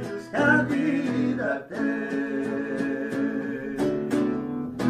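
Acoustic guitar strummed, playing the closing chords of a slow sertanejo song after the last sung line.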